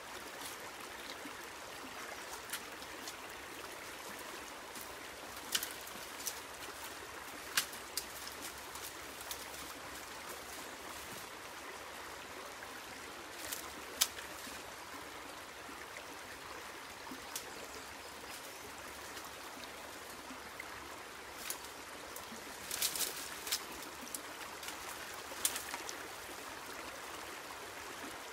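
Shallow rocky creek flowing and trickling steadily over stones. Scattered sharp clicks and knocks sound above it, with a small cluster a little over three-quarters of the way through.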